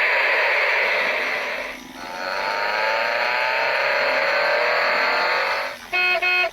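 A noisy vehicle engine sound, revving: it drops away briefly about two seconds in, then returns rising in pitch. Music with steady notes comes in near the end.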